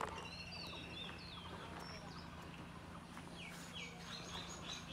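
Small birds chirping, a scatter of short high calls and quick pitch glides that grow busier in the second half, over a faint steady low hum. A sharp click sounds right at the start.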